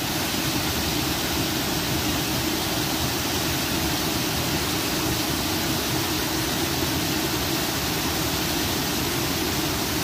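Steady rushing of a shallow, fast stream running over rocks, an even noise with no breaks.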